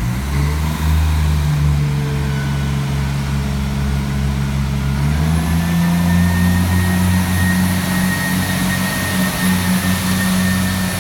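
Irish Rail ICR (22000 Class) diesel multiple unit's underfloor diesel engines powering up to pull away: a loud, steady engine drone that opens up suddenly, steps up in pitch about five seconds in, and picks up a thin high whine at the same moment.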